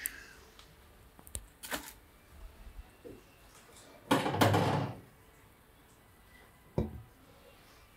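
Handling of pour-over coffee equipment: a few light clicks and knocks, a louder rustling thump about four seconds in, and a sharp knock near the end as the glass coffee server is handled.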